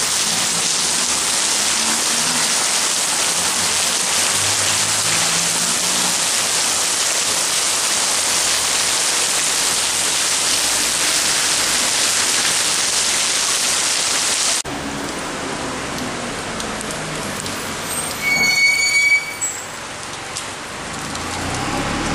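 Heavy tropical rain pouring down in a dense, steady hiss that drops abruptly to a softer level about two-thirds of the way through. Near the end a brief high-pitched squeak stands out as the loudest sound, and the rain noise swells again just before the close.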